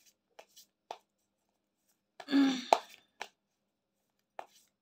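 Tarot cards being shuffled and handled: a string of light, separate card clicks. A little past the middle comes one louder burst, under a second long.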